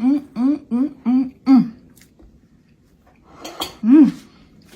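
A woman's wordless, appreciative vocal sounds on tasting food: about five quick, rhythmic pitched syllables in the first two seconds, then a breathy sound and one more rise-and-fall syllable near four seconds.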